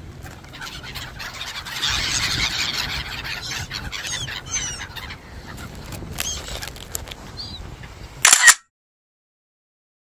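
A flock of black-headed gulls calling, a dense chatter of cries about two seconds in, then scattered single cries. Near the end a short loud burst of noise, then the sound cuts out to complete silence.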